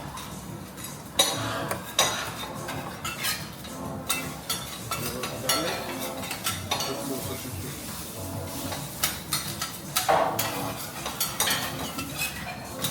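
Metal spatulas and utensils clinking and scraping on a hot teppanyaki griddle in irregular sharp strikes, with food sizzling underneath. The loudest clanks come about a second in and again near the end.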